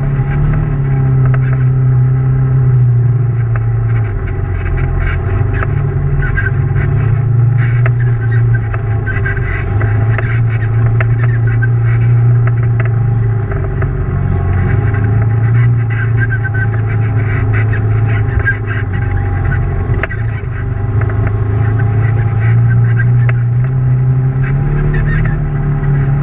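Engine of a side-by-side UTV running as it drives a dirt trail, a steady loud drone whose pitch rises and falls a little with the throttle.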